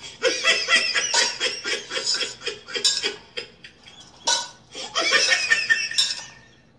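A person laughing in quick, repeated bursts that trail off near the end.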